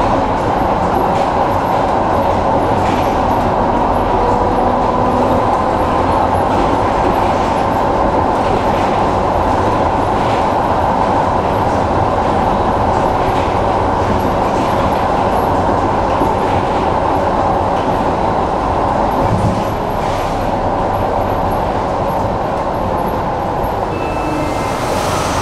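Tram running along the line: a steady, loud rumble of wheels on rail and traction equipment, with occasional faint clicks. It gets a little quieter about twenty seconds in, and a brief high tone sounds near the end.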